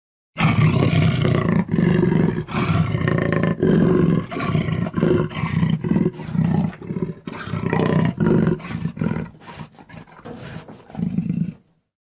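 A jaguar roaring in a long run of repeated grunting calls, one after another. They come quicker and fainter near the end, then one more loud call.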